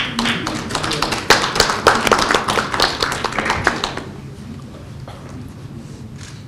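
A small audience applauding for about four seconds, then dying away.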